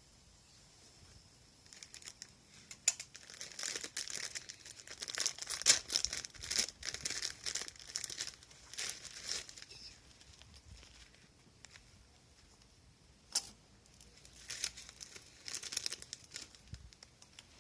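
Plastic wrapper being crinkled and torn, in irregular bursts of rustling, with a single sharp click partway through.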